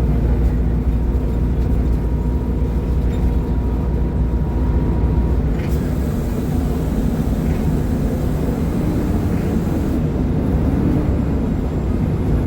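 Mercedes-Benz O500UDA superarticulated bus's diesel engine, driving through a ZF gearbox, running steadily under way. About halfway through a faint high hiss comes in and runs until near the end. The engine note rises and falls in the later seconds.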